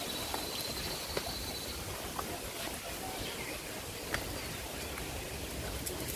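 Quiet outdoor ambience: a steady hiss, a thin high note held through the first couple of seconds, and a few faint clicks.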